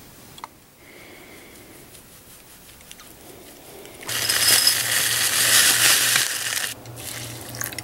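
Dry oats poured from a bag into a bowl: a dense rustling pour lasting about two and a half seconds, starting about four seconds in, over a low steady hum. Before it there is only faint room sound.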